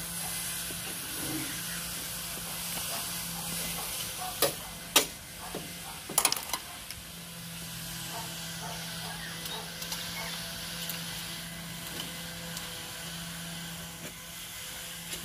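A few sharp knocks, about five within two seconds, as workers on a ladder fit a split air conditioner's outdoor unit onto its wall bracket, over a steady hiss and a low hum.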